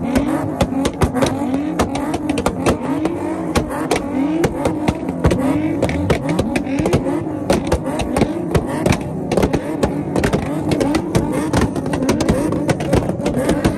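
Nissan 350Z engine revved over and over, its pitch climbing and falling about once a second. A rapid crackle of exhaust pops and backfires runs throughout, as the exhaust spits flames.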